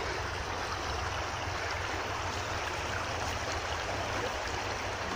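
A small burn running under the bridge: a steady, even rush of flowing water.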